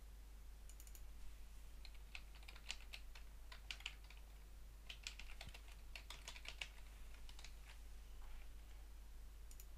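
Faint typing on a computer keyboard: irregular runs of key clicks as a line of text is typed.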